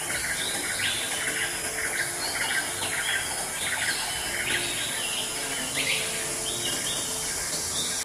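Small birds chirping in quick runs of short notes, over a steady high hiss.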